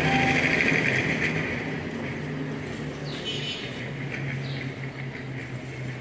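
A motor vehicle's engine running and fading away over the first two seconds, with a steady low hum lingering after it, and a few short bird chirps in the second half.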